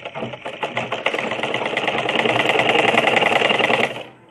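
Sewing machine running and stitching a seam: a rapid, even mechanical rattle that starts slowly, picks up speed after about a second, runs steadily, then stops suddenly near the end.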